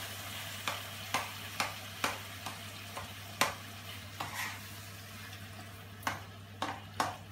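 Curry vegetables and tinned tomatoes sizzling in a frying pan as a utensil stirs them. The utensil knocks against the pan about twice a second for the first few seconds, then a few more times near the end.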